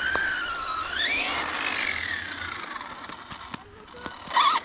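Electric motor whine from radio-controlled models. The pitch wavers, climbs sharply about a second in, then slowly falls as the throttle eases. A brief loud burst comes near the end.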